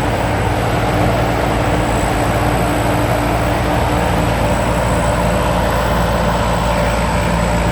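Rice combine harvester's diesel engine running steadily, a loud continuous drone with no change in speed.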